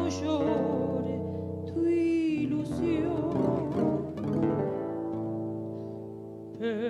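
A tango song played on acoustic guitar, with the guitar filling the gap between sung lines. A woman's singing voice comes back on a wavering note near the end.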